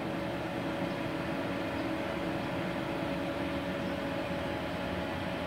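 Switched-on Multipro MIG-MAG 250 inverter welding machine idling: a steady hum with a few held tones, not welding.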